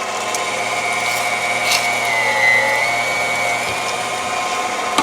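KitchenAid stand mixer running with its metal food grinder attachment, grinding partially frozen beef. A steady motor whine that dips in pitch briefly about halfway through.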